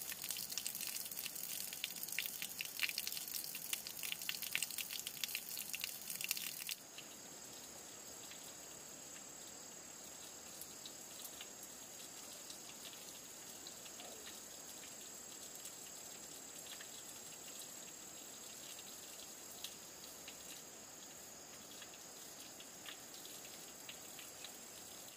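A dense crackling patter of drops for about the first seven seconds, then, after an abrupt cut, a steady high-pitched insect trill.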